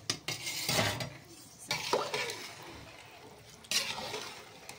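Spatula stirring soaked rice in water in a metal pot: three swishing, sloshing strokes, with a sharp knock against the pot near the start.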